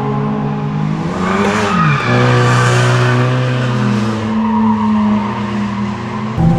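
Drift cars on track: engines running hard with notes that hold and then shift, one dropping in pitch about two seconds in, and tyres squealing for a few seconds from about a second in.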